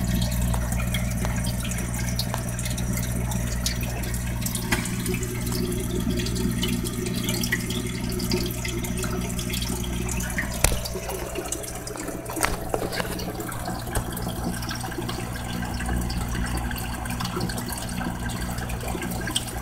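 Water running and splashing into an aquaponics fish tank, over a steady low hum.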